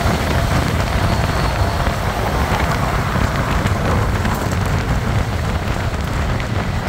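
Wind buffeting the microphone on a moving motorcycle, a steady rushing rumble mixed with road and traffic noise.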